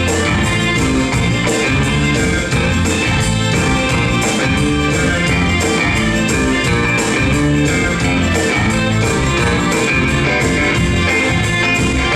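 Live rock-and-soul band playing an instrumental passage with no vocals: guitar lead over bass and drums, with a steady beat.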